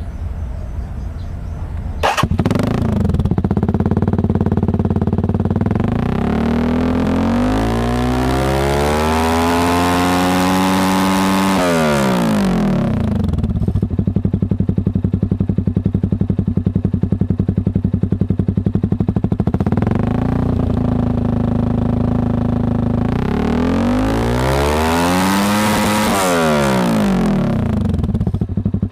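Z200S single-cylinder motorcycle engine, fitted with an Akrapovic Evo GP exhaust with its silencer insert in, idling and being revved hard: a long climb to high revs and back down, a short blip, then a second high rev, settling back to idle each time. A sharp knock about two seconds in, after which the engine sounds louder.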